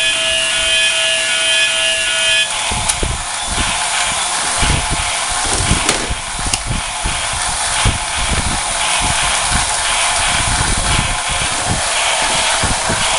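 Battery-powered toy steam train on a plastic track: a steady electric buzz that cuts off after about two and a half seconds, then a rough mechanical grinding noise with many irregular plastic knocks and clatters as the train and its cars are pushed and handled.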